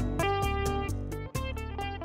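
Instrumental bossa nova jazz: sustained chords over a bass line with light, steady ticking percussion, fading out as the track ends.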